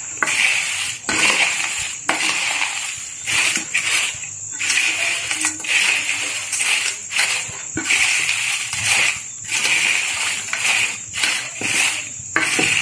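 Fried corn flakes for chivda rustling and crunching as they are tossed with a spoon in a bowl to coat them with masala, in repeated strokes about once a second, with light clicks of the spoon against the bowl.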